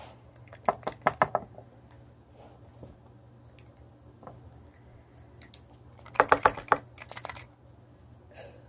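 Small plastic Hatchimals toys handled on a table: two quick runs of light clicks and taps, about a second in and again about six seconds in, with a few lone ticks between.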